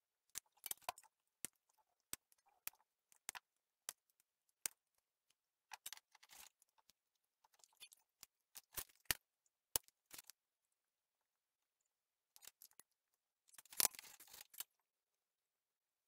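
Flush cutters snipping off excess component leads on a small circuit board: a series of sharp, irregular clicks. The clicks come in small groups, with the loudest, busiest cluster near the end.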